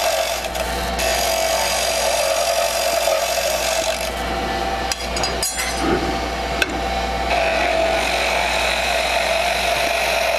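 A wood lathe runs with a steady low hum while a curved-tip skew chisel makes planing cuts along a spinning wooden spindle, giving a continuous hissing shaving sound. The cutting eases and picks up again as the tool is moved, with a few light clicks around the middle and a brighter hiss near the end.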